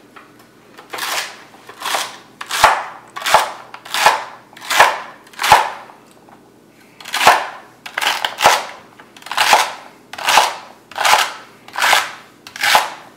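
Chef's knife chopping a bunch of celery on a wooden cutting board: a steady run of crisp cuts, a little more than one a second, with a short pause near the middle.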